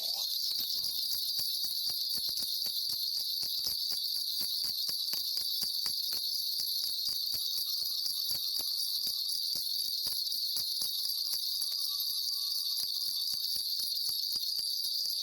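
Shaman's ritual bells shaken without pause, a dense, steady high jingling, as she calls on the spirits for a reading. A faint held tone comes and goes in the middle.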